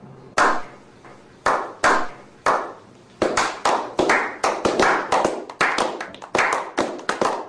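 Slow clap: single hand claps about a second apart that quicken into faster clapping by several people, each clap with a short echo.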